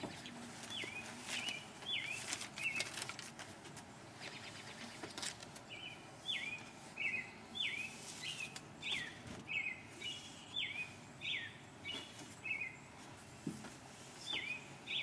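A small songbird chirping over and over: short chirps that slide down in pitch, about one or two a second, stopping for a couple of seconds before starting again, over a low background hiss.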